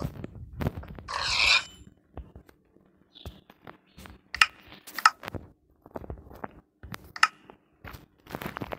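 Hand woodworking sounds: a string of light knocks and taps, with a short rasping scrape about a second in and a few sharper ringing taps later on.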